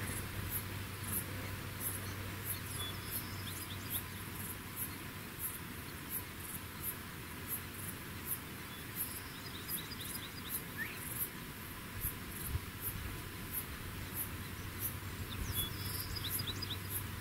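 A high-pitched insect pulsing evenly, about three pulses a second, with a few short bursts of faint chirps and a low steady hum underneath.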